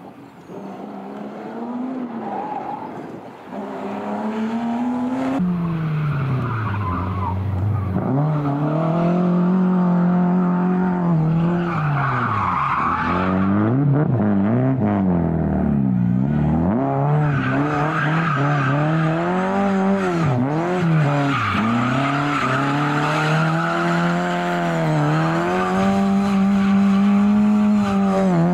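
Rally car engine revving hard, faint at first and loud from about five seconds in, the revs dropping and climbing again and again through gear changes and corners, with tyres squealing as the car slides.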